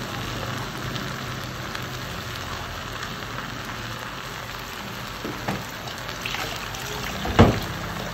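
Fried rice with minced beef, green peas and sweet corn sizzling softly in a pot on the stove, with a small knock about five seconds in and a sharper, louder knock near the end.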